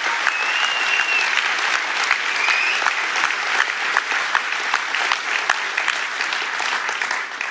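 Audience applauding, a dense steady clatter of many hands that dies away near the end.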